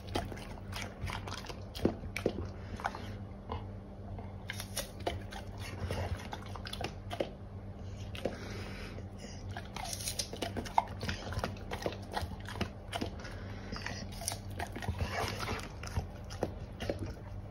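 Golden retriever chewing slices of raw pear: a run of irregular crunching bites and chews.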